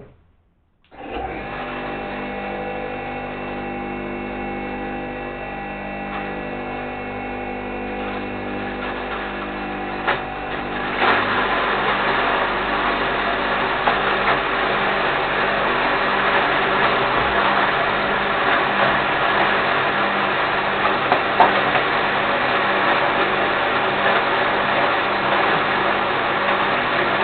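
Electric grain mill switched on about a second in, its motor coming up to a steady hum. About ten seconds later it turns louder and rougher, with small scattered ticks, as grain from the hopper goes through and is ground into feed.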